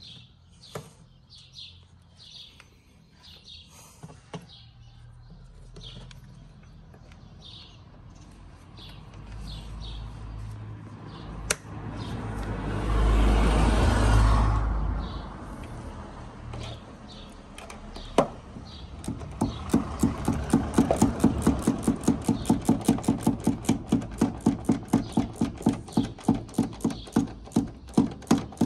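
Birds chirping, then a broad rush of noise that swells and fades around the middle. From about two-thirds in, an even, rapid clicking about three times a second.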